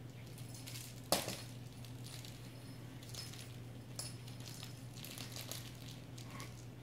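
A small cat toy hitting a hardwood floor with a sharp clack about a second in, then lighter clicks and scuffs as a cat grabs it and bats it about.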